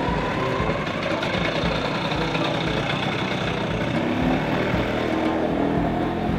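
Vintage motor scooter's small two-stroke engine running steadily as the scooter rides past at low speed.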